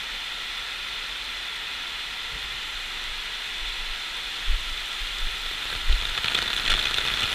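Artificial downpour of about 300 mm an hour in a large indoor rainfall test facility: a steady hiss of very heavy rain on wet ground. From about six seconds in it grows louder, with drops striking a clear plastic umbrella over the camera, and there are two low thumps a little before that.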